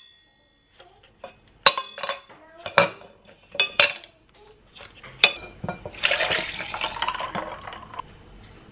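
Frozen coffee cubes pushed out of a silicone ice tray and dropping into a tumbler, clinking about four times. Near the end, liquid creamer is poured over them for about two seconds.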